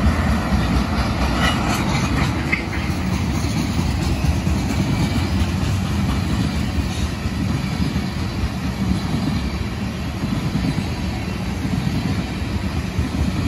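Loaded ethanol tank cars of a freight train rolling past, a steady rumble of wheels on rail, with a few brief higher-pitched notes in the first few seconds.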